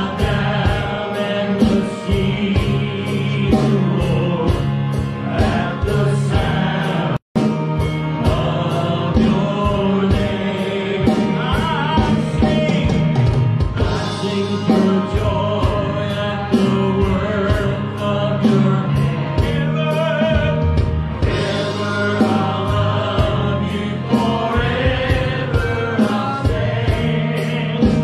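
A gospel song performed live: a group of men sing together, backed by keyboard, guitars and drums keeping a steady beat. The sound drops out for a split second about seven seconds in.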